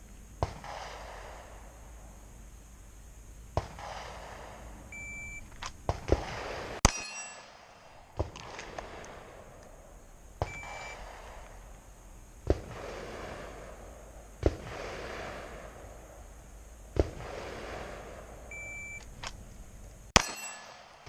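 Glock 19 9mm pistol shots fired one at a time at a slow, uneven pace, about ten in all, with a closely spaced pair about six seconds in. Each sharp crack is followed by about a second of echoing reverberation.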